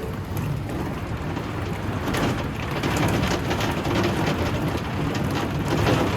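Rain pelting a cable-car cabin in a storm: a dense patter of small hits on the roof and windows over a steady low rumble.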